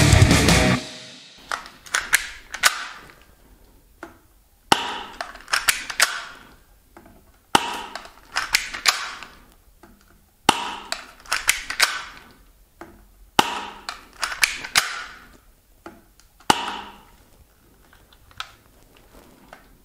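Loud guitar music cuts off in the first second. Then a spring-powered Walther P99 airsoft pistol is cocked and fired through a chronograph about six times, one shot roughly every three seconds. Each shot is a cluster of sharp clicks with a short rasp from the slide being racked.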